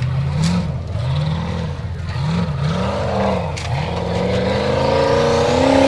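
Formula Offroad buggy engine revving hard in short bursts, its pitch rising and falling several times, then rising steadily near the end under load as the buggy climbs a steep dirt hill.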